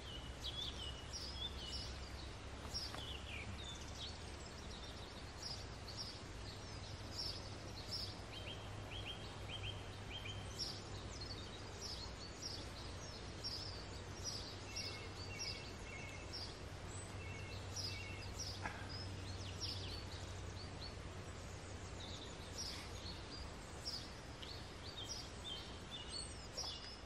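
Small songbirds chirping and singing in the woods, many short high calls and a few brief whistled notes scattered throughout, over a steady low background rumble.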